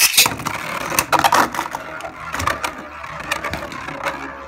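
Beyblade Burst spinning tops launched from ripcord launchers into a plastic Beystadium, with a loud rush at the launch and then a rapid clatter of clicks and knocks as they spin and strike each other and the stadium walls.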